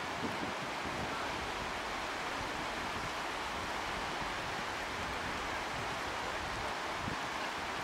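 Steady hiss of surf washing on a beach, with wind rumbling on the microphone.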